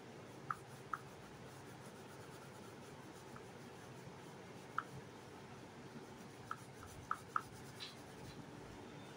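An oil pastel stick rubbed back and forth over drawing paper as it shades, faint and steady, with a handful of short sharp clicks scattered through.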